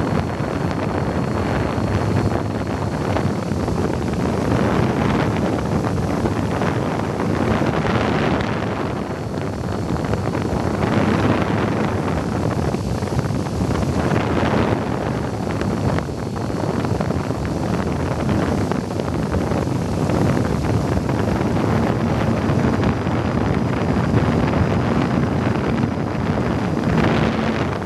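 Wind rushing over the microphone of a camera riding on an RC airplane in flight, loud and swelling as the plane turns, with the faint steady whine of the plane's motor and propeller underneath, shifting in pitch now and then.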